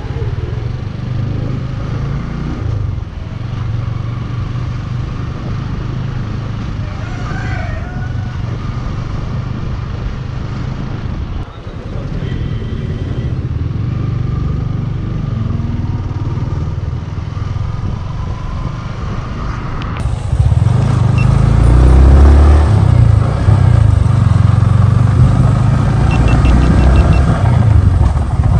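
Motorcycle engine running steadily while riding, growing louder and heavier about two-thirds of the way through.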